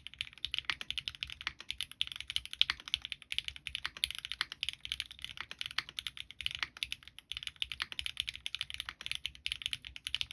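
Steady, fast typing on a custom mechanical keyboard: lubed Gateron Ink Black V2 linear switches in an aluminium plate, with ABS GMK keycaps. It makes a dense, continuous run of clicks.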